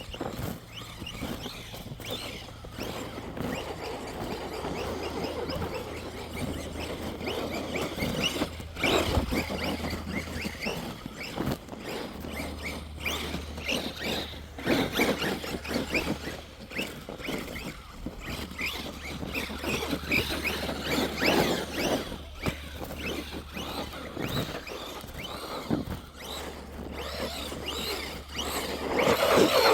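Electric RC truck driving over snow and ice: its motor whines in uneven bursts of throttle while its tyres crunch and scrape over the icy crust.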